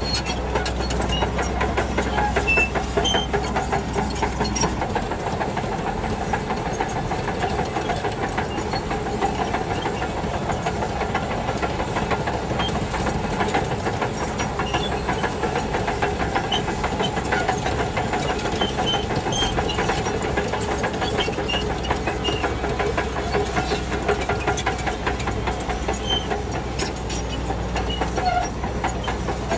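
Shantui DH17 C2 crawler bulldozer working, its diesel engine running under a continuous metallic clatter. The low drone thins about five seconds in.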